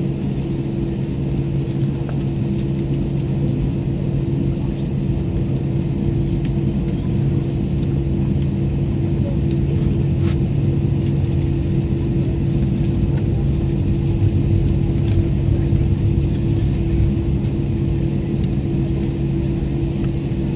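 Cabin noise of an Airbus A321-231 taxiing, heard inside the cabin over the wing: its IAE V2500 engines at taxi power give a steady low rumble with two held low hum tones, with a few faint clicks and knocks from the rolling aircraft.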